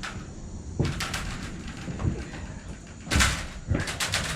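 Scattered metal clanks and knocks from hand tools and bolts on the sawmill carriage's steel knees, the loudest about three seconds in, with a run of quick clicks near the end.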